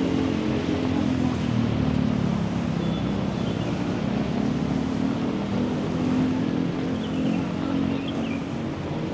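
Steady city street traffic, with vehicle engines humming under an even wash of noise.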